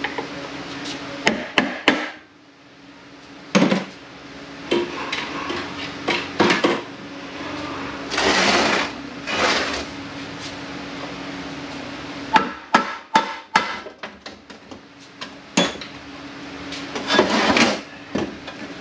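Hammer blows and metal clanks on an automatic transaxle's case and parts: scattered single knocks, then a quick run of about a dozen strikes a little past halfway. Between them, parts scrape and rattle over a steady low shop hum.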